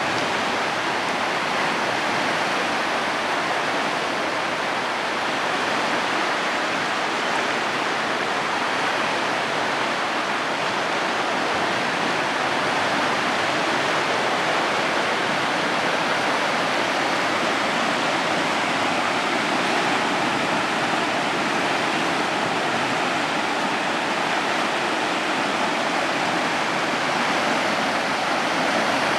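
Creek in flash flood, its fast floodwater rushing and churning in a steady, unbroken rush.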